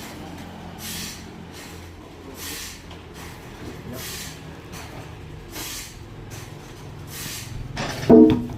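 Sawmill machinery running: a steady low motor hum with a hissing burst about every one and a half seconds, and a short, loud pitched sound near the end.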